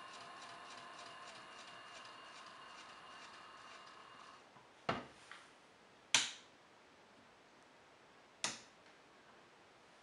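Small electric motor of a modified Miele W1 toy washing machine running faintly with a fast, even ticking, then stopping about four and a half seconds in. Three sharp clicks follow, the loudest about six seconds in.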